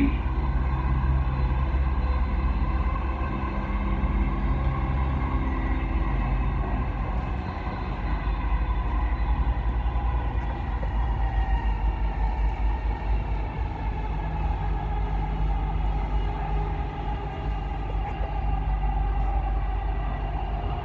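Dubai Metro train running at speed, heard from inside the carriage: a steady rumble with a whine over it, the whine dropping slightly in pitch in the last few seconds.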